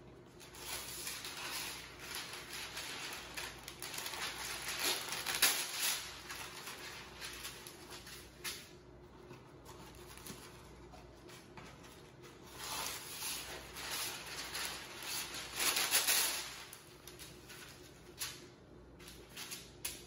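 Parchment paper being pulled from its box and spread flat on a countertop: crinkling and rustling in two long stretches, the first over the opening eight seconds or so, the second about twelve to sixteen seconds in.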